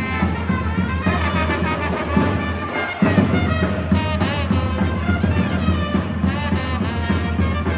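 Brass band music with trumpets and trombones playing a lively tune.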